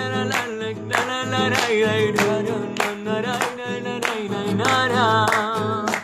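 A man singing while strumming chords on an acoustic guitar in a steady rhythm.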